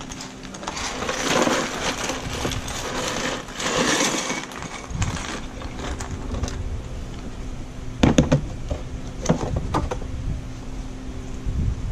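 Loose plastic LEGO bricks handled and sorted by hand: rustling of the box and pieces, then sharp clattering clicks of bricks knocking together about eight seconds in. A low steady hum sits underneath.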